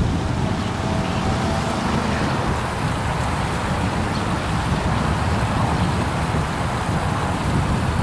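Small rock waterfall splashing into a garden pond, a steady rushing of falling water, under a low, uneven rumble of wind on the microphone.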